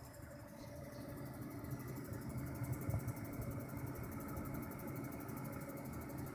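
EVGA GTX 570 graphics card running under a steady electrical buzz and hum, which the owner puts down to coil whine or bad capacitors on the card's circuit board rather than its fan.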